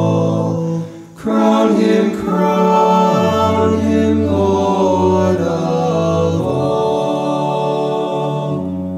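An eight-voice male group singing unaccompanied in close harmony. A held chord breaks off about a second in, then a new sustained chord comes in with the inner voices moving, easing down in loudness near the end.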